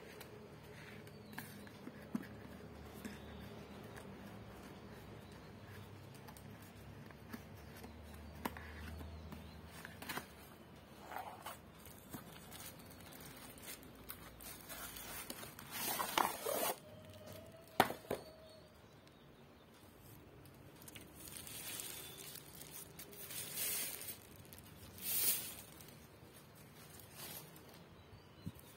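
Cardboard box being opened and a soundbar pulled out of its plastic wrap: scraping and rustling of cardboard and plastic sheet, with scattered clicks and one sharp click about two-thirds of the way through.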